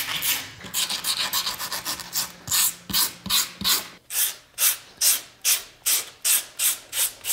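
Wire-bristled leather scratcher scraping back and forth in short strokes, roughing up the surfaces of a saddle tree and a leather block so the glue will bond. The strokes come fast and uneven at first, then settle into a steady rhythm of about two and a half a second.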